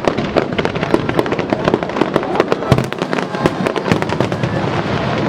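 Aerial fireworks bursting in quick succession: a dense run of sharp cracks and bangs, with one deeper boom about two and a half seconds in.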